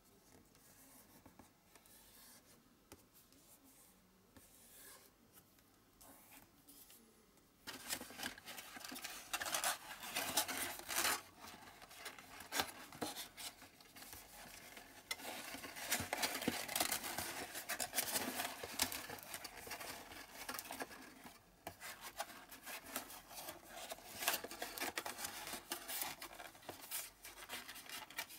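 Thin card rustling, rubbing and scraping as a box and its card lining are folded, creased and pressed into shape by hand. Faint at first, then louder and continuous from about eight seconds in.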